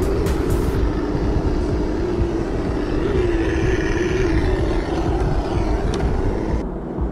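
Electric drive motor and gears of an FTX Kanyon RC rock crawler whining steadily, the pitch wavering with the throttle as the truck climbs over a rock, over a continuous low rumble.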